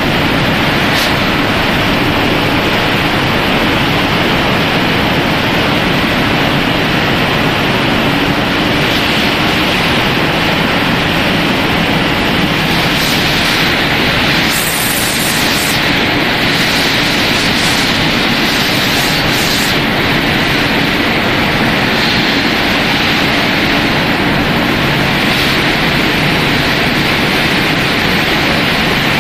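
Steady, loud rushing noise of the running machinery on a rice-snack extrusion and drying line, the fans and motors of a continuous electric oven and its conveyors, with faint steady hums underneath.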